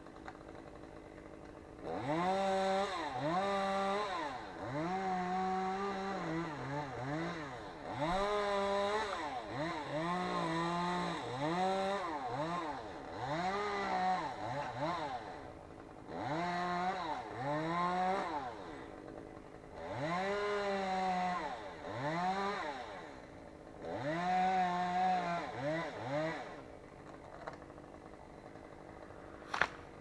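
Chainsaw cutting the top out of a spruce, revved in about a dozen bursts, its pitch climbing and falling with each. A single sharp knock near the end.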